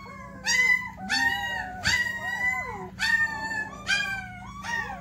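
Young puppies howling and whining: a run of about eight high cries that swoop up and fall away, some of them overlapping.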